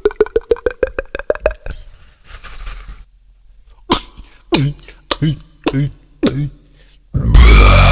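A person making beatbox mouth sound effects. First comes a quick run of about ten pulses climbing in pitch, then a short hiss, then five sharp sounds that each drop in pitch, and near the end a loud, harsh burst.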